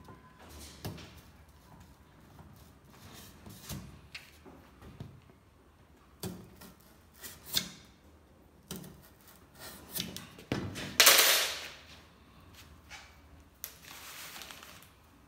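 Handling noise of a cardboard lid and a steel wire rod on a plastic bucket: scattered light knocks and taps, with one loud scraping rustle about eleven seconds in and a softer, longer rustle near the end.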